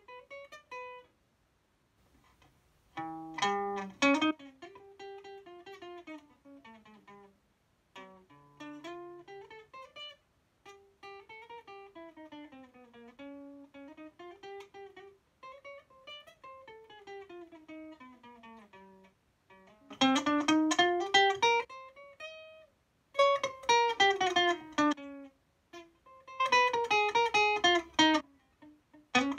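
Acoustic guitar played solo: plucked single-note lines that climb and fall in pitch. From about twenty seconds in, the playing turns louder and fuller with chords.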